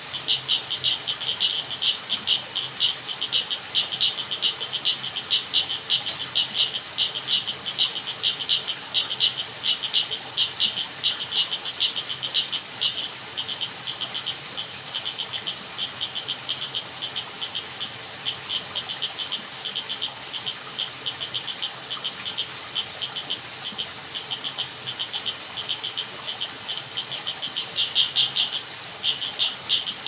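Chorus of frogs calling in rapid, short, high-pitched pulses, going on without a break. It is a little softer through the middle and builds again near the end.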